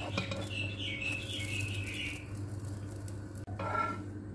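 Slotted nylon spatula tapping and scraping on a non-stick frying pan as pancakes are flipped. A high, wavering chirping sound runs through about the first two seconds, with a shorter one near the end, over a steady low hum.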